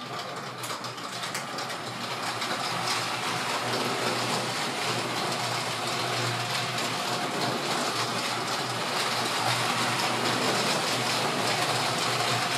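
LEGO City Express Passenger Train (60337) running on plastic LEGO track: its battery-powered motor whirring and the wheels rattling over the rails. It grows louder over the first couple of seconds, then runs steadily.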